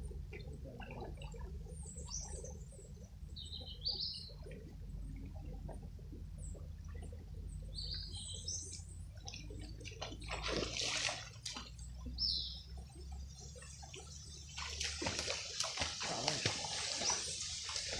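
Water moving in a shallow, rocky river, with a few short bird chirps. The water noise is louder for a moment about ten seconds in and again near the end.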